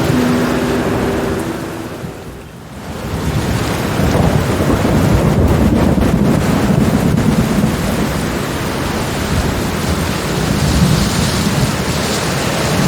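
Heavy rain falling with a long, deep rumble of thunder that swells in a few seconds in and slowly eases off near the end. Soft held music notes fade out at the start, and the sound dips briefly before the storm swells back.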